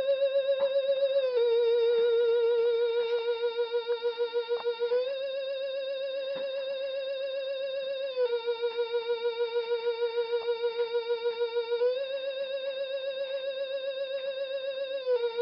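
Rennoc Motionette witch figure's battery-powered electronic sound playing its spooky wavering tone. The tone steps back and forth between two notes a little apart, holding each for about three and a half seconds.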